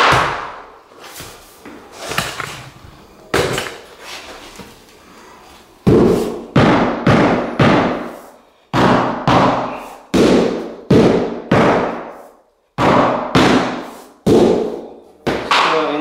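Repeated hammer blows knocking hardwood flooring boards into place, each strike sharp with a short ringing decay. A few spaced strikes come first, then from about six seconds in a steady run of roughly two blows a second.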